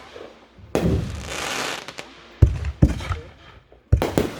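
Fireworks shells bursting. A bang about a second in trails off into a crackling hiss lasting about a second, then four sharp reports come in two close pairs.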